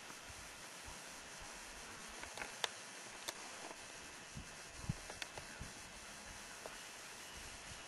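Faint steady hiss of background noise, broken by a handful of short sharp clicks scattered through it.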